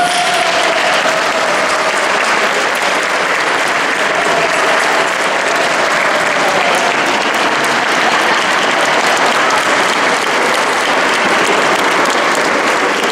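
Audience of diners applauding steadily at the end of a choir's song, with the choir's last note fading away in the first second.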